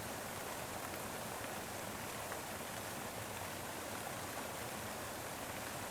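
Steady rushing noise with no distinct hits or tones, like a background ambience track.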